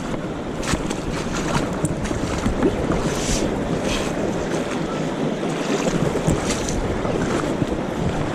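Wind buffeting the microphone, with the rush of moving river water beneath it and a few scattered small clicks.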